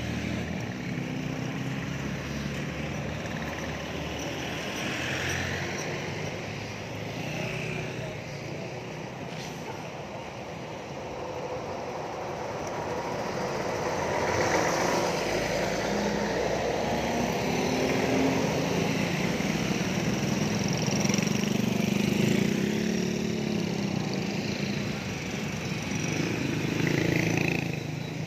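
Road traffic passing: steady vehicle engine noise, growing louder about halfway through as a large vehicle passes close by.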